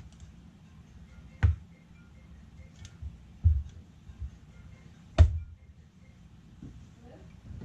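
A few sharp knocks and clicks, about two seconds apart, from a tool and hands handling a laptop's casing during a disassembly.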